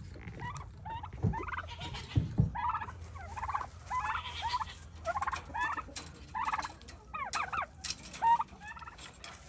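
A flock of poultry calling busily, overlapping short squawks and clucks several times a second, as birds wait to be let out of their coops. Two dull thumps come about one and two seconds in.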